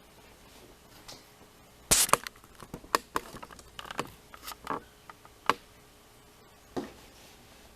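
Small metal lock parts clicking and clattering, a quick run of sharp ticks and taps with a last single click near the end, as a lock core is taken apart and its pins come out.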